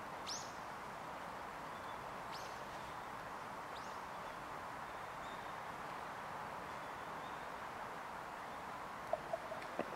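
Outdoor park ambience: a steady background hiss with short, high bird calls that sweep down in pitch, three of them in the first four seconds. A few sharp clicks come near the end.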